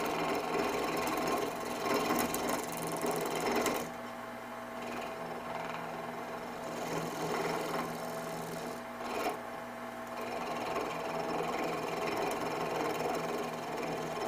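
Rikon 70-100 lathe's half-horsepower motor running with a steady hum while a knife-like blade scrapes the spinning wooden blank. The scraping is heavy for about the first four seconds, then lighter, with a short burst about nine seconds in.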